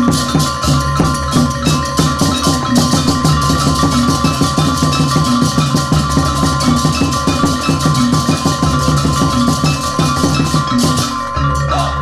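Loud, rhythmic percussion music: fast, even drum strokes over a melody struck on mallet instruments.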